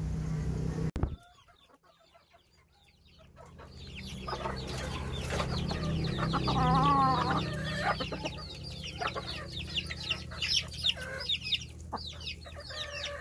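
Backyard chickens feeding: chicks peeping in many short falling chirps, with clucks from the hens and one long wavering call about six seconds in, the loudest sound. A different sound cuts off about a second in.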